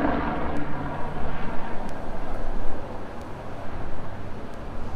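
Street traffic: passing vehicles, with a steady low engine hum that fades out about a second and a half in.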